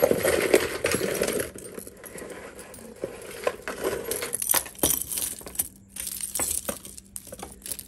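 Costume jewelry clinking and jangling as hands sort through a box of mixed jewelry pieces. A dense rustling clatter comes in the first second and a half, then scattered sharp clinks.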